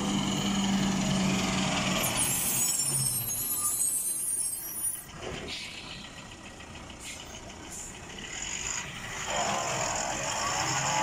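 Diesel engine of a heavy multi-axle Ashok Leyland lorry pulling slowly round a hairpin bend, with air hissing. The sound drops sharply about five seconds in and builds again near the end as the lorry passes close by.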